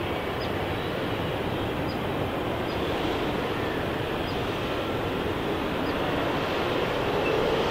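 Jet airliner engine noise: a steady rushing sound that grows slightly louder toward the end as the aircraft comes closer.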